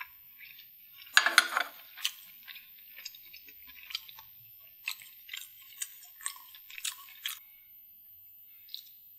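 Close-miked mukbang eating sounds: a loud wet chewing and slurping burst about a second in, then scattered short mouth clicks and smacks as fingers pick saucy deviled food off a plate, thinning out near the end.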